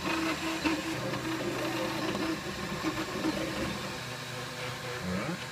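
Flashforge Dreamer 3D printer running a print: its stepper motors sing in short, shifting pitched tones as the print head moves back and forth, over a steady mechanical hum.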